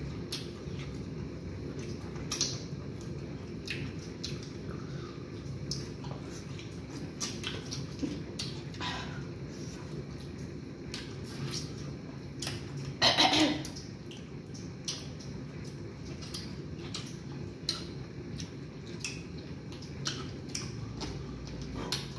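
Chewing and lip-smacking of people eating fufu and banga soup by hand: many short wet clicks scattered over a steady low hum. One louder, brief mouth sound comes about thirteen seconds in.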